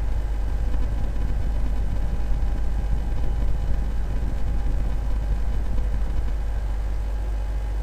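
Steady low rumble and hiss with a few faint steady hum tones and no distinct events: the ambient sound of the live launch-pad feed while the Falcon 9 waits on the pad.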